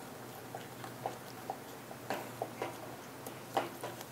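Wooden spoon stirring thick risotto in a metal saucepan, scraping and knocking against the pot in irregular soft clicks and taps, over a steady low hum.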